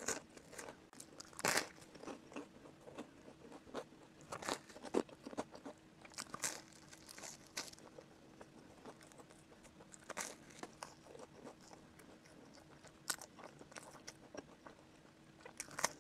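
Close-miked eating sounds of a person chewing whole-wheat bread with jam: irregular wet mouth clicks and smacks, with finger licking.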